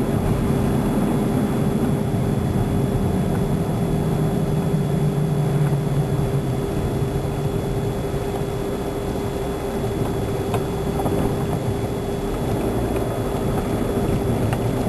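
Steady engine and road noise of a car driving, with a constant low hum.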